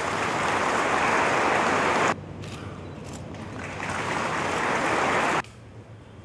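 Audience applauding: the clapping stops abruptly about two seconds in, starts again and swells, then stops abruptly again a little after five seconds.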